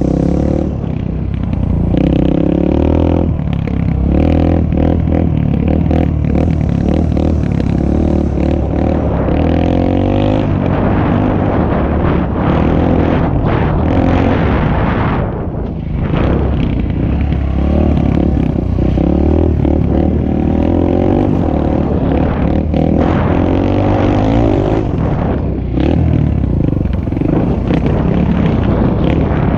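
Suzuki DR-Z125L's small single-cylinder four-stroke engine running under riding load, revving up and easing off with the throttle and gear changes. The engine drops back briefly about halfway through, then picks up again.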